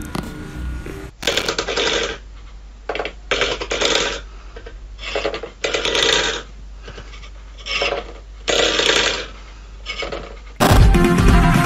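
A stainless steel pet bowl pushed and tipped by a cat's paw, scraping across a wooden floor in about eight short, irregular scrapes. Loud music starts near the end.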